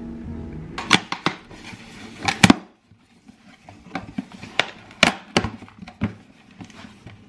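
Hands opening a cardboard shipping box: a string of sharp clicks, taps and scrapes as fingers pick at the packing tape and handle the box, with short pauses between.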